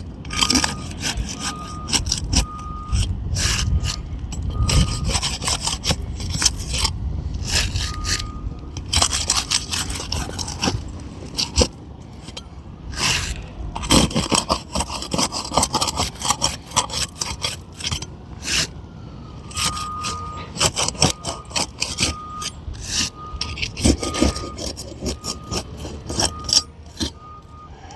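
Steel crowbar scraping under asphalt roof shingles in irregular strokes, cutting through the tar sealant line to unseal each shingle. A truck's reversing beeper beeps steadily in the background at the start and again over the last third.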